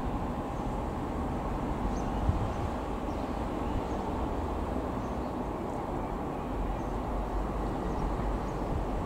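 Boeing 737-800 airliner's two CFM56-7B jet engines heard from far below as it passes high overhead: a steady, even low rumble.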